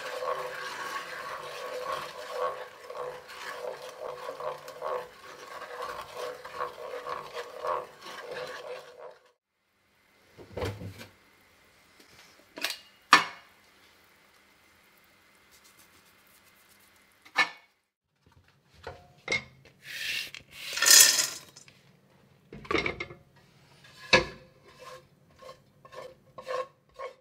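Wooden spatula stirring and scraping round a non-stick frying pan of bubbling sugar, butter and milk for about nine seconds. Then mostly quiet, broken by scattered knocks and clatter, with one louder burst of noise about twenty seconds in.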